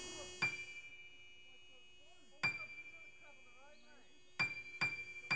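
A single high, bell-like chime note struck five times, each ringing and fading: once about half a second in, again about two and a half seconds in, then three close together near the end. It is part of the film's music.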